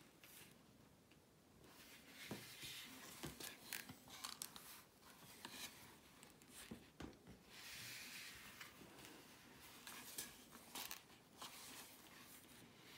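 Faint rustling and light ticks of stiff paper as a pop-up card is opened and folded shut, its cut layers sliding and flapping against each other. The first second or two is almost silent.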